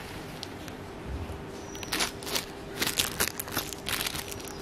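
Light rustling and crinkling from something being handled, with scattered short crackles and clicks that come thicker in the second half, over a faint steady hum.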